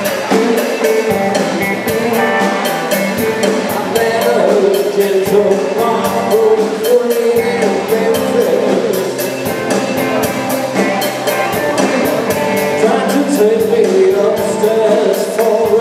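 Live rock band playing: electric guitars and a drum kit keeping a steady beat, with a singer over them.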